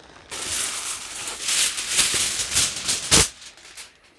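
Plastic bag crinkling and rustling as it is handled, with a sharper crackle about three seconds in.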